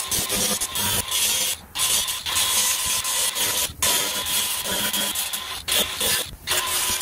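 Power sanding tool running with a sanding pad against the boat's fiberglass, a steady motor whine over gritty abrasion noise. The sound dips briefly several times as the pad is lifted or eased off.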